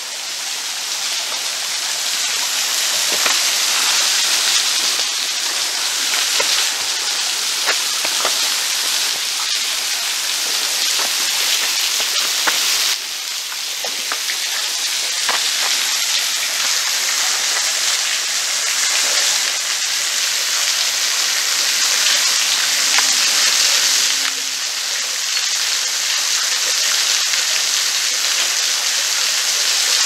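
A small waterfall trickling over a sandstone ledge and dripping into a shallow rock pool: a steady, rain-like hiss of splashing water with scattered small drips.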